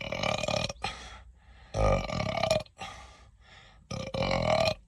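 A man burping loudly three times, each burp lasting under a second, about two seconds apart, on a very full stomach.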